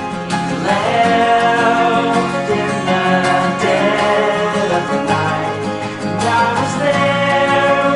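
Acoustic folk song with plucked guitar and a man's singing voice.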